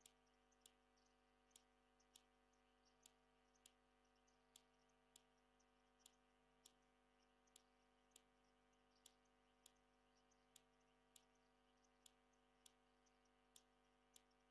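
Near silence: a faint steady hum, with a sharp faint click about every half second to second.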